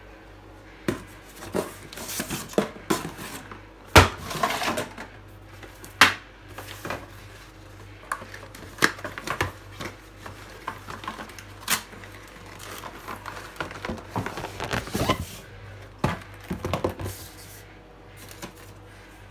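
Cardboard packaging being opened and unpacked by hand: irregular knocks and taps of boxes and their contents set down on the counter, with a few stretches of cardboard rustling and sliding. A low steady hum runs underneath.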